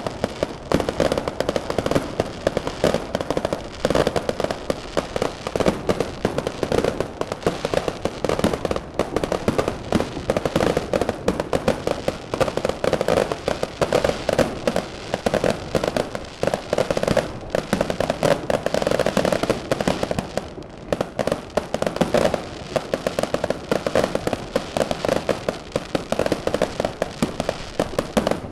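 Fireworks going off in a dense, continuous barrage of rapid bangs and crackles with no letup.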